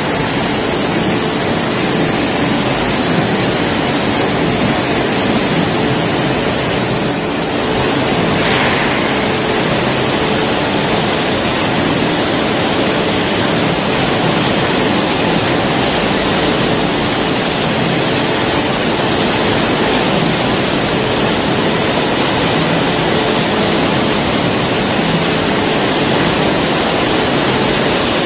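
Machinery of a French fries production line running: a steady, loud, even rushing noise with a faint hum underneath.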